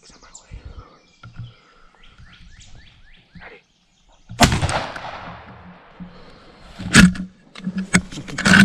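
Small birds chirping in quick repeated falling notes, then a single shotgun blast about four seconds in that echoes and fades over about a second. A second sharp bang, the loudest sound, follows about three seconds later, with more loud knocks near the end.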